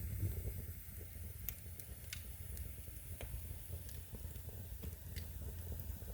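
Wood fire burning in a fireplace: scattered sharp crackles and pops over a low, steady rumble of the flames.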